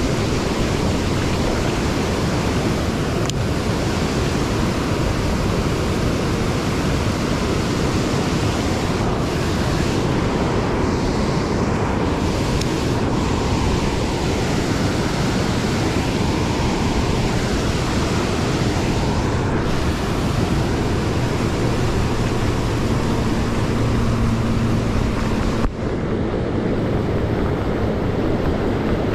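Steady rush of white water pouring over a river weir and through the rapids below it.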